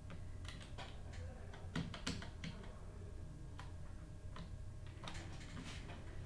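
Computer keyboard keys clicking in irregular taps as someone types, over a low steady hum.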